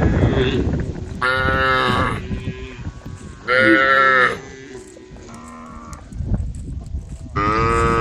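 Cattle mooing, several separate calls, each under a second long: two loud moos in the first half, a fainter one around the middle, and a long one starting near the end. The cows are calling to the herd.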